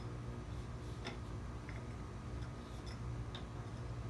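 Scattered light metallic clicks of an Allen wrench working the spinner screw out of a model airplane's propeller hub, about one tick a second, over a steady low hum.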